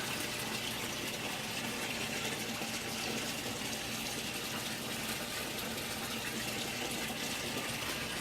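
Steady rush of water pouring and splashing from the outlet of a strong bilge pump into an aquaponics tank.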